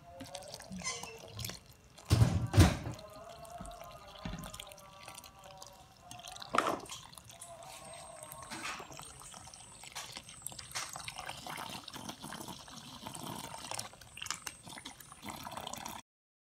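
A wire whisk stirring an egg into flour in a stainless steel bowl, with a few sharp knocks about two seconds in. Water is poured into the flour and whisked in, with splashing and trickling.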